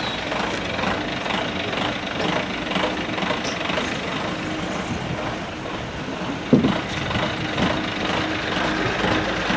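Congested street traffic: engines idling and vehicles creeping past at low speed, with a short, loud sound about two thirds of the way through.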